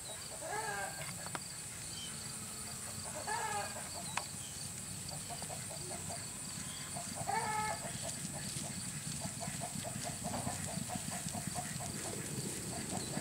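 Horses galloping over grass, with dull hoofbeats, while a short pitched animal call sounds three times over a steady high buzz.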